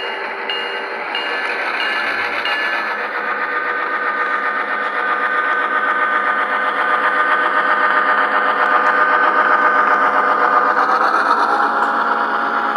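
Tsunami2 sound decoder in an HO-scale Illinois Central Green Diamond streamliner model, playing diesel engine sound through the model's small speaker as the train runs. A bell dings about twice a second and stops a few seconds in. The engine sound grows louder toward the middle and rises a little in pitch near the end.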